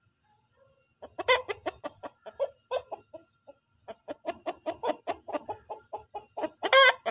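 Aseel rooster clucking in a quick run of short calls, about four a second, starting about a second in, with one louder, drawn-out wavering call near the end.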